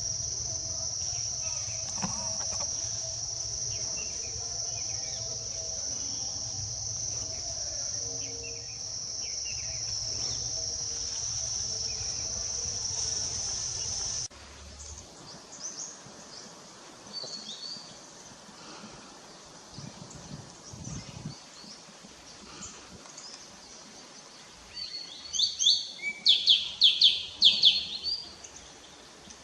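A steady, high insect drone of crickets or cicadas over a low rumble, which cuts off abruptly about halfway through. After that it is quieter, with scattered bird chirps, and near the end a bird gives a loud run of quick repeated calls.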